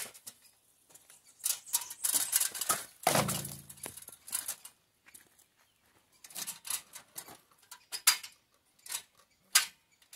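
16-step aluminium articulated ladder being folded into its scaffold position: scattered metallic clicks, rattles and knocks from its hinges and rails, loudest in a cluster about one and a half to four and a half seconds in.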